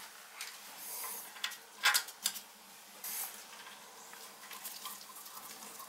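A few light clicks and clinks as a washer and nut are put on a toilet's closet bolt by hand, the loudest about two seconds in.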